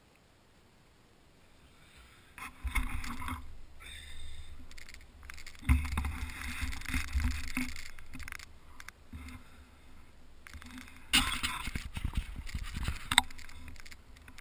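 Wind and handling noise on a GoPro mounted on a model glider's fuselage as the glider is picked up and carried: a deep, irregular rumble that comes in bursts after a couple of seconds of near silence, with a sharp tick near the end.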